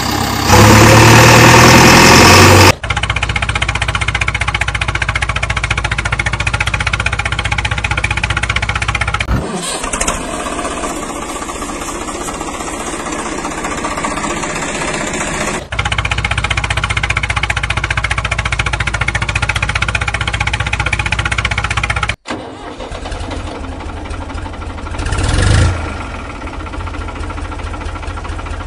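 Engine sounds running steadily, laid over the toys' movements: a loud opening stretch, then several different engine recordings that switch abruptly from one to the next, with a brief rise in engine speed near the end.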